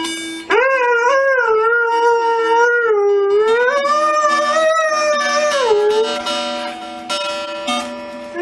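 Doberman howling along to an acoustic guitar. One long howl starts about half a second in, rises in pitch partway through and drops off around six seconds, over steady plucked guitar notes.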